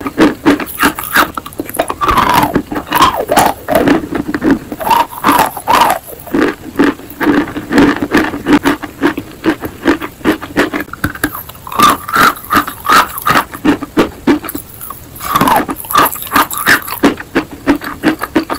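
Close-miked chewing of a mouthful of eating chalk: rapid crunching and wet, pasty smacks of the lips and tongue, several clicks a second with brief pauses.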